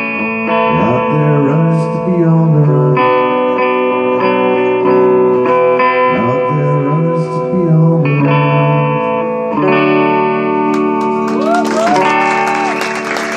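Solo guitar strumming the song's closing chords, each one left to ring. Near the end an audience starts applauding.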